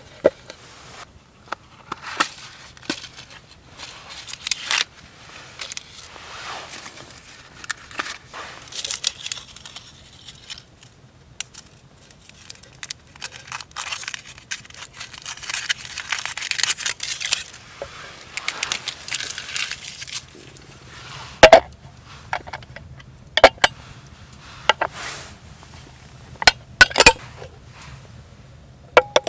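Irregular rustling, crinkling and scraping of things being handled, with several sharp knocks in the second half.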